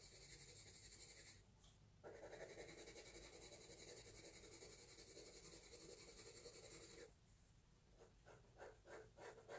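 Faint pencil graphite scratching on paper as a patch is shaded with quick strokes. A steady rasp runs with a brief pause just after a second in, then breaks into separate short strokes, about three a second, near the end.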